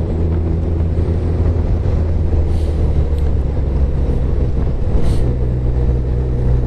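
Motorcycle engine running at a steady road speed under a constant rush of wind noise; the engine note shifts about five seconds in.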